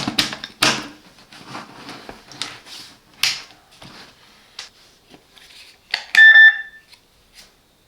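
Clicks and knocks of the plastic plug-in receiver of a Silvercrest wireless doorbell being handled and plugged into a wall socket, then a short beep about six seconds in as it powers up.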